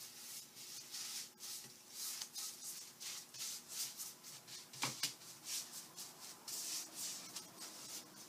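A cloth rubbing thinned oil stain onto a chair's finished wood, making soft swishing strokes at about two to three a second. There is one brief knock about five seconds in.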